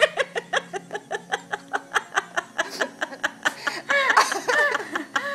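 A person laughing in a long run of short, quick laughs, about five a second, turning into longer, higher laughs about four seconds in.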